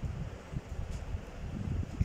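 Sliced onions frying in oil in a non-stick pan under a low, uneven rumble, with a wooden slotted spatula stirring them near the end.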